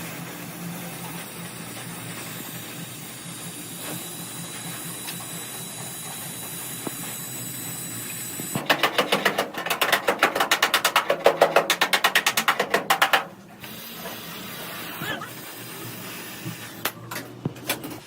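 A steady hiss, then a power tool hammering in a fast, even rattle of about ten strokes a second for roughly four and a half seconds, starting a little before halfway and stopping abruptly; a few single clicks follow.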